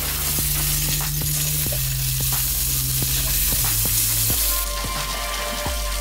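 Food sizzling as it fries, a steady hiss that stops about four and a half seconds in, over background music with sustained low notes.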